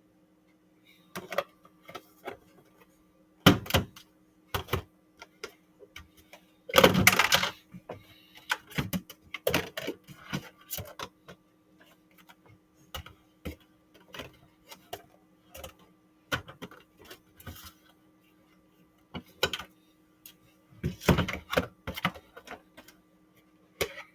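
Food containers and packages being handled and moved around in a fridge: irregular clicks, knocks and clatters of plastic and packaging, with a louder rustle or scrape about seven seconds in and another about twenty-one seconds in. A faint steady hum runs underneath.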